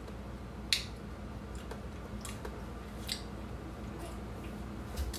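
Sipping a frappuccino through a straw and tasting it: a few short, sharp mouth smacks over faint room hum.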